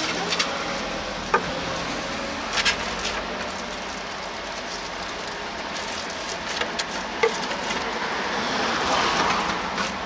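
Steady background hiss with a few light knocks and clicks as sliced sundae is scooped off a wooden cutting board into a styrofoam takeout box.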